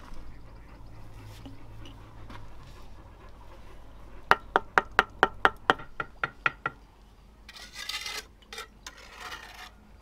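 A steel bricklaying trowel taps a brick about a dozen times in quick succession, four or five sharp ringing knocks a second, knocking it down into the mortar bed. Near the end the trowel scrapes across wet mortar twice.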